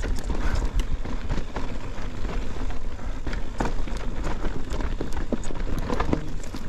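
Mountain bike riding over a rough, rocky trail: tyres crunching on loose rock, with frequent sharp clicks and knocks from the bike, over a steady low rumble.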